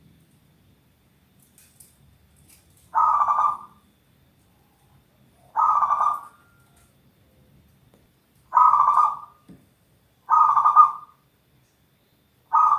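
Zebra dove (perkutut) cooing in short repeated phrases, one every two to three seconds: four full coos, with a fifth starting right at the end.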